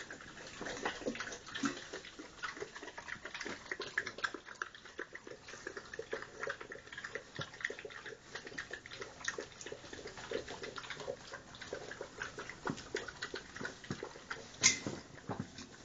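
A litter of puppies eating and drinking from stainless steel bowls: quick wet lapping and slurping with many small clicks and clinks against the metal.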